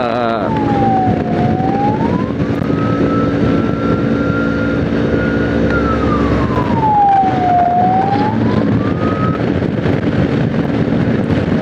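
A vehicle siren wailing slowly: it falls, rises and holds high, then falls and rises once more before stopping.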